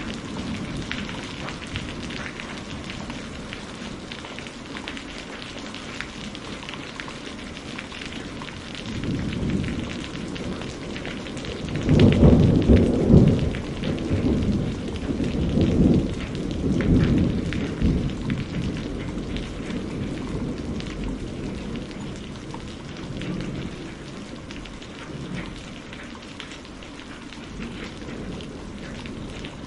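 Thunderstorm: steady rain falling, with thunder rumbling low. A heavy roll of thunder comes about twelve seconds in and rolls on in waves for several seconds before fading back to the rain.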